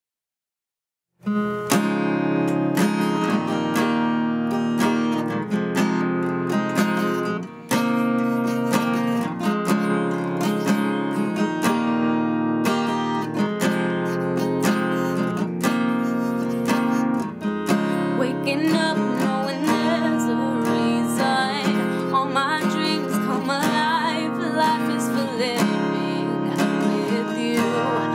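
Steel-string acoustic guitar strummed in a steady rhythm, starting about a second in. A young woman's singing voice joins over the strumming about eighteen seconds in.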